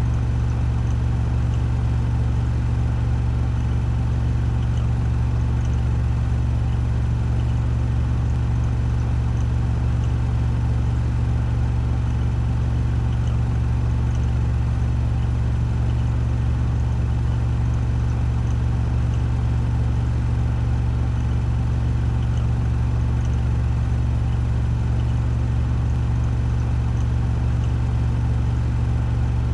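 Washing machine on its spin cycle at full speed of 1400 rpm, making a steady, deep hum that does not change.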